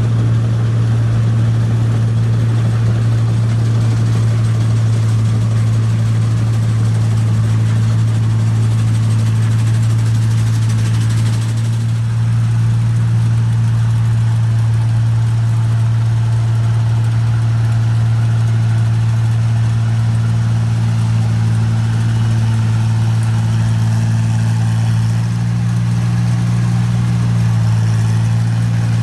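New Holland Clayson 1545-S combine harvester's diesel engine running steadily as a deep, even drone. Its pitch shifts slightly for a couple of seconds near the end.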